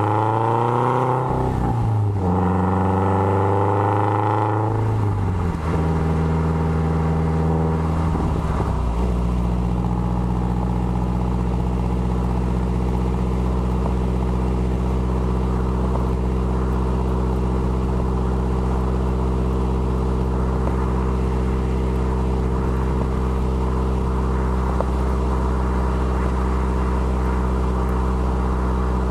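Exhaust of a 2013 Subaru WRX's turbocharged flat-four, fitted with equal-length headers and a Maddad turboback exhaust, heard at the tailpipes. The engine climbs in revs twice, dropping back after each climb, steps down again about eight seconds in, then holds a steady, even note.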